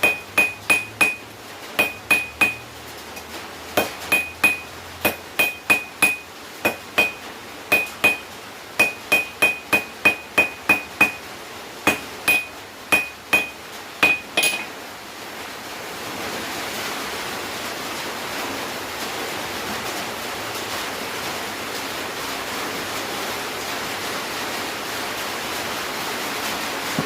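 Hand hammer striking hot half-inch round steel on an anvil, in quick groups of two to four blows, each with a bright ring from the anvil. The strikes stop about halfway through, and a steady hiss of falling rain follows.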